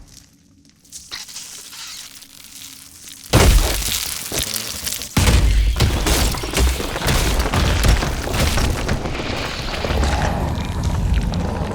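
Dramatic crash-and-boom sound effects: quiet at first, then a sudden loud crash about three seconds in and another loud hit a couple of seconds later, running on as a loud, rumbling din.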